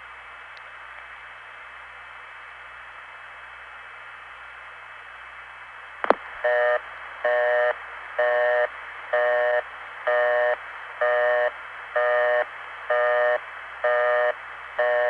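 Hiss on an open long-distance telephone line. About six seconds in there is a click, then a buzzy multi-pitched tone that pulses about once a second, half on and half off, which is the cadence of a telephone busy signal.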